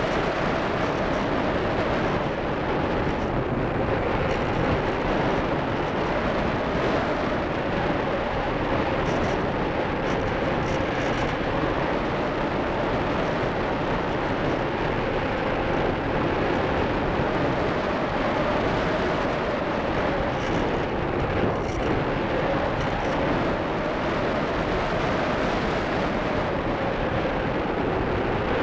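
Steady rush of air over a keychain camera's small microphone on an ASW 15 glider in flight, with a faint steady hum under it.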